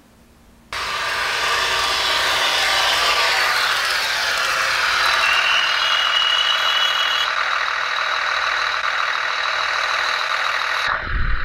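Diesel railcar engine sound from the sound function of a Märklin 37730 model of a DB class 648.2 LINT 41 railcar, running with a many-toned engine drone. It starts suddenly about a second in, sinks in pitch over the next few seconds, then holds steady. A thin high tone joins for about two seconds in the middle, and the sound cuts off abruptly near the end.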